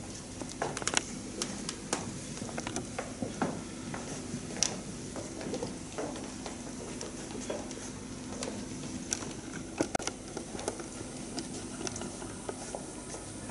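Scattered footsteps, shuffling and small knocks of people moving about on a wooden floor, over a faint steady hum of the hall.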